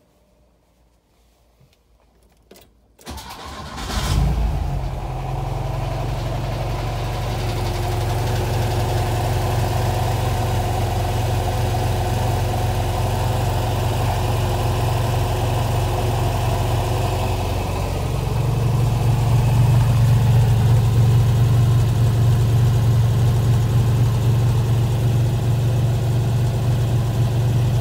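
Porsche 914 engine cold-starting: after a couple of small clicks, the starter cranks briefly and the engine catches about four seconds in, then settles into a steady idle. The idle gets a little louder about eighteen seconds in.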